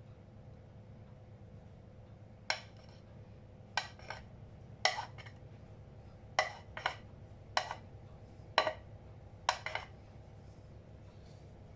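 A spatula knocking and scraping against a glass mixing bowl: about ten sharp, irregular clinks with a brief ring, as the last of a thick cake batter is knocked out into a loaf tin.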